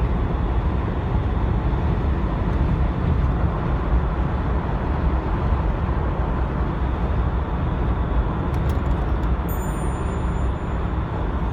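Car driving along a highway, with steady road and engine noise.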